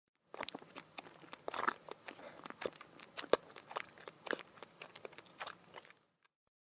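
A person chewing something crunchy: a dense, irregular run of sharp crunches that starts a moment in and stops about a second before the end.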